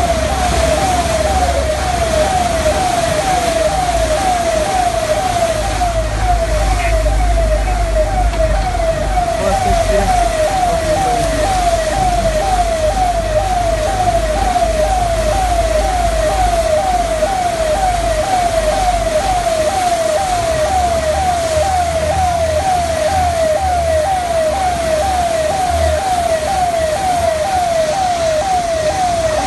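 Electronic siren sounding a steady, fast repeating falling wail, a little under two sweeps a second, over a low rumble.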